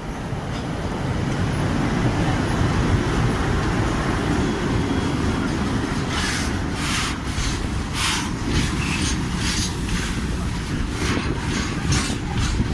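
A passenger train running on the track, heard from on board: a steady low rumble of wheels on rails that builds over the first couple of seconds. From about six seconds in, irregular rushes of hissing noise come over the rumble.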